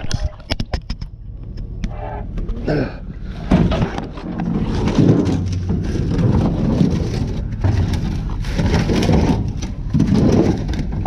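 Repeated clattering knocks and scraping of objects being handled and struck, over a steady low hum.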